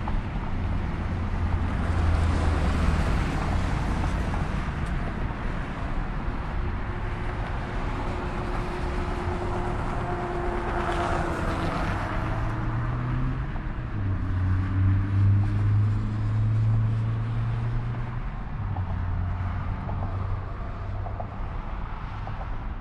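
Jet airliner departing under takeoff power, a steady engine roar that swells to its loudest about halfway through, with a slowly falling tone as it passes.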